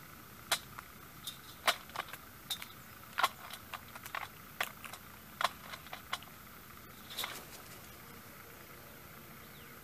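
Crows pecking at peanuts and dry cat food in a feeding dish: a quick, irregular run of sharp beak taps and clicks that stops a few seconds before the end.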